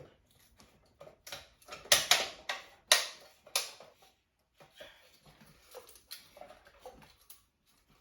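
Sharp clicks and knocks of hard objects being handled: several loud ones in the first four seconds, then lighter, scattered ticks.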